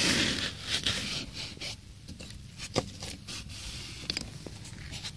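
Small kindling fire crackling with scattered, irregular sharp pops as thin sticks catch at the base of a log 'candle' fire lit from below. A brief scraping rustle at the start.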